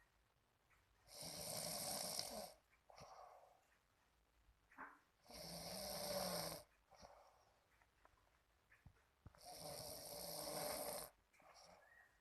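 A sleeping young person snoring: three snores about a second and a half long, coming about four seconds apart, with softer breathing between them.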